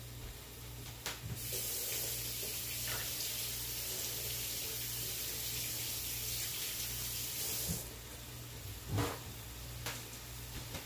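Kitchen faucet running for about six seconds, coming on abruptly just after a click and shutting off abruptly; a couple of knocks follow.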